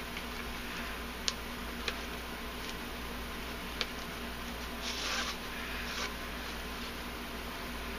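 Paracord being handled and pulled through while a cobra knot is tied by hand: soft rustling with a few faint clicks and a short swish of cord sliding about five seconds in, over a steady faint hum.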